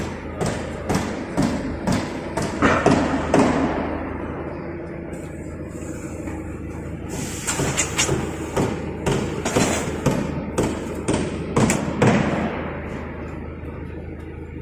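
CCD-camera laser cutting machine at work, its head moving in short, abrupt strokes that knock about twice a second, over a steady machine hum. The knocking comes in two runs with a quieter stretch in the middle.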